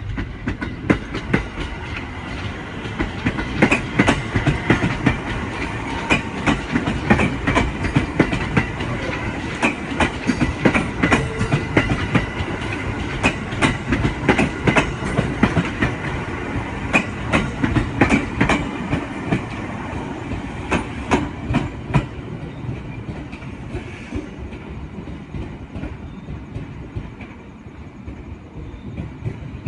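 JR East 701-series electric train rolling through the station, its wheels clattering over rail joints and points in a long run of clacks over a steady rumble. The clatter eases after about twenty seconds and the sound fades toward the end.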